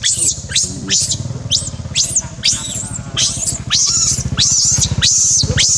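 Baby macaque squealing over and over in distress, short high-pitched rising-and-falling cries about two or three a second, over a low steady throbbing hum.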